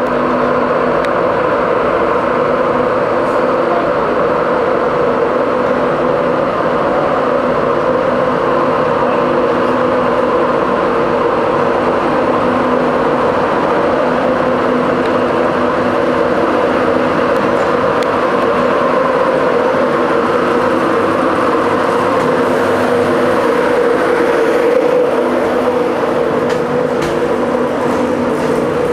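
Class 91 electric locomotive of an InterCity 225 train giving a steady electric drone with several held tones, loud and unchanging throughout.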